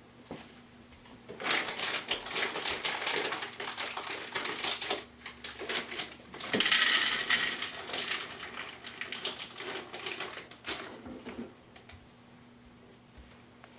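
Glasses and dishes clattering and clinking as they are set out on a tray, in quick runs of small clicks with a louder stretch near the middle. A faint steady low hum runs underneath.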